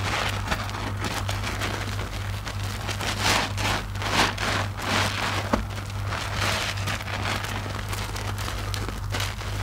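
Soap-soaked IKEA mesh loofahs being squeezed and kneaded by hand in a tub of suds: a run of wet squelches over the steady fizzing crackle of the foam, with a low steady hum underneath.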